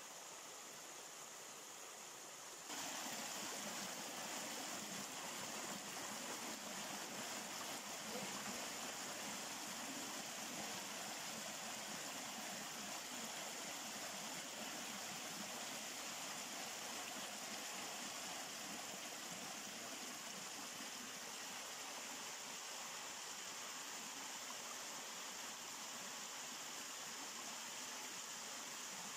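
Stream water spilling over a sandbag weir and cascading down over rocks: a steady rush of water that jumps louder about three seconds in.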